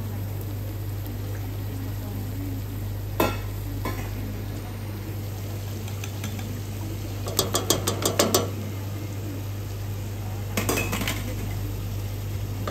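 A metal ladle and strainer clink against steel kitchenware: a single clink about three seconds in, a quick run of about seven metal taps around the eight-second mark, and a short clatter near the end. A steady low hum runs underneath.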